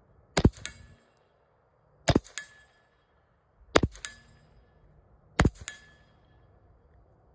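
Four handgun shots at an even pace, about one every 1.7 seconds. Each shot is followed a moment later by the clang of a steel target being hit, which rings briefly.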